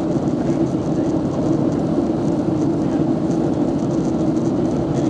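Steady cabin noise of a jet airliner in flight, heard inside the cabin: an even rush of engine and airflow with a low hum.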